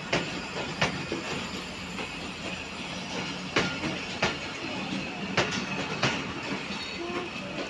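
Pakistan Railways passenger coaches rolling past at close range as the train pulls out, a steady rumble of wheels on rail. Pairs of sharp clicks come as each bogie crosses a rail joint, three times.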